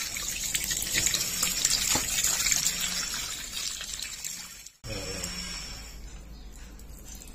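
Tap water running and splashing over raw chicken pieces as hands rub them clean in a stainless steel sink; the stream is loudest in the first half. It breaks off abruptly about five seconds in, leaving quieter sound.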